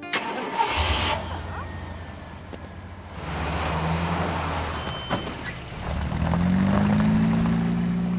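A motor vehicle's engine starts and runs with a steady low hum, its pitch rising in the last couple of seconds as it pulls away.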